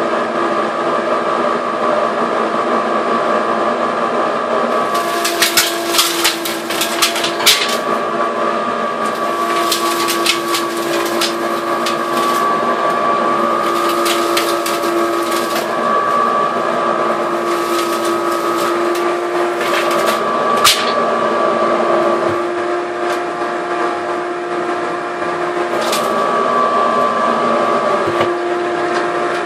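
Razi 1 hp single-phase dust collector running with a steady whine as it sucks sawdust through a floor-sweep hose, with chips clicking and rattling up the hose in spells during the first two-thirds.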